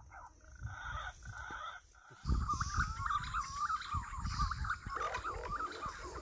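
Many birds chirping and calling together in a dense chorus, over a thin high steady buzz and a low rumble. Everything gets louder about two seconds in.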